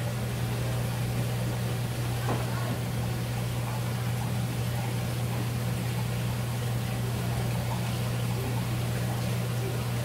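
A steady low mechanical hum from a running motor or pump, even in pitch and level, with a faint tick about two seconds in.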